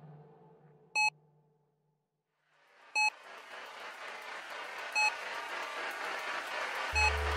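Electronic soundtrack: short high beeps repeat every two seconds over a drone that fades away, then, after a moment of near silence, a hiss swells up and a deep bass tone comes in near the end.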